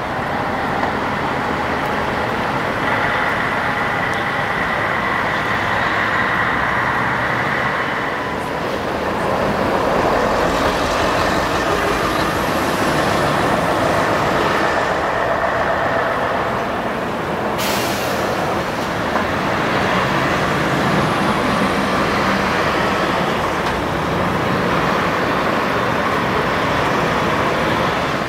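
A large vehicle running steadily, with a whining tone from about three to eight seconds in and a short hiss of released air from its air brakes about seventeen seconds in.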